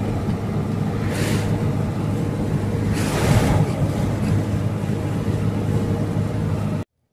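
Vehicle engine and road noise heard from inside the cab while driving on a highway, with oncoming traffic rushing past about a second in and again around three seconds. The sound cuts off abruptly near the end.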